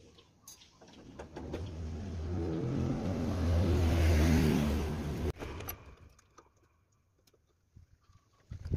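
A motor vehicle passing by, its engine noise swelling over a few seconds and then cutting off abruptly. A few sharp clicks near the end.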